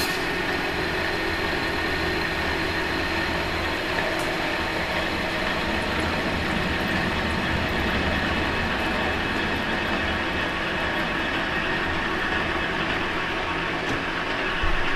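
Metal lathe running steadily at 600 RPM, its gearing whirring while the tool takes a light facing cut, about a sixteenth of an inch, across the end of a hydraulic cylinder rod.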